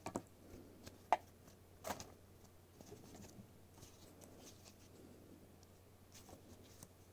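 Faint handling of a woven nylon NATO watch strap being threaded under a dive watch's case, with a few light clicks and taps from its metal buckle and keepers, the sharpest about a second in.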